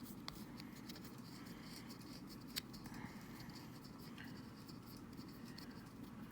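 Faint scratching and small clicks of a small screwdriver and tiny screw working against a Joy-Con's plastic shell, with one sharper click about two and a half seconds in.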